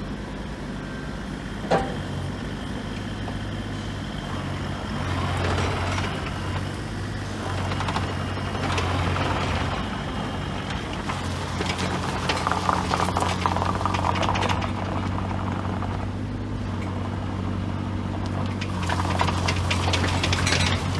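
Bobcat E35 compact excavator's diesel engine running steadily. It gets louder and busier in several stretches, as when working the hydraulics. There is a single sharp click about two seconds in.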